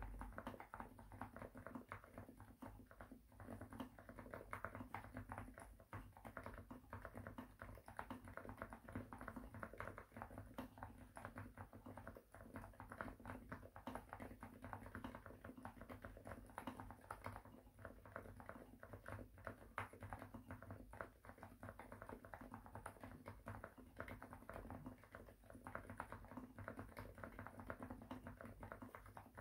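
Quiet, continuous fast typing on a Xinmeng M67 gasket-mount keyboard with lubed TTC Silent Bluish White silent switches, a polycarbonate plate and PBT doubleshot keycaps: dense, muted keystrokes without a pause.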